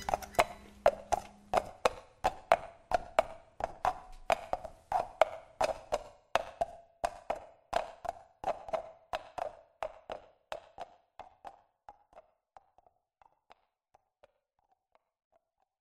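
Hollow wooden percussion, like a wood block, tapping a steady rhythm of about three strokes a second that gradually fades away over about twelve seconds, while the band's last low note dies out in the first second or two.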